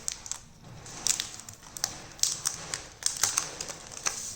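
Polythene wrap crinkling and crackling in irregular clicks as it is pulled off a new smartphone.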